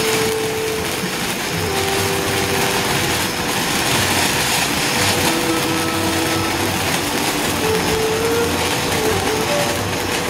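Boomer assorted ground fountain firework spraying sparks with a steady loud hiss and crackle, overlaid by wavering whistling tones that step and glide in pitch.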